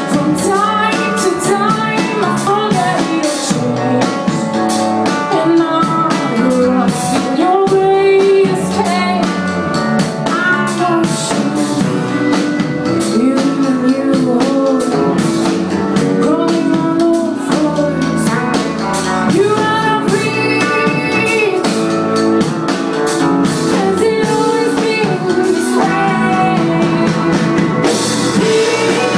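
Live rock band playing a song: a woman singing lead over electric guitars and a drum kit, heard from the audience floor.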